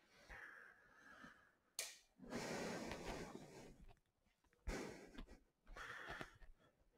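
Faint breathing from a person walking close past the microphone: a soft breath about two and a half seconds in and a shorter one near the end, with a few soft clicks between.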